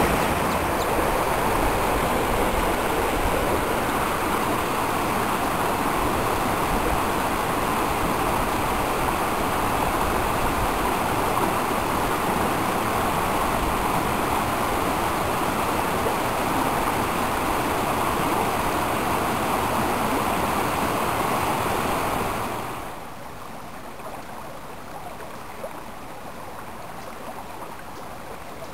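Stream water flowing in a steady rush, which turns suddenly quieter and softer about three-quarters of the way through and carries on at the lower level.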